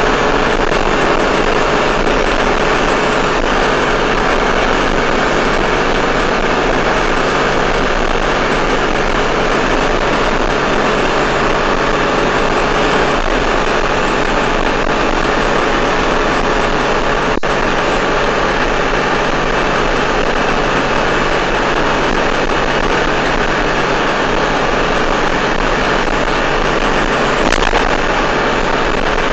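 Steady engine drone and road noise inside a truck cab at highway speed, holding even throughout.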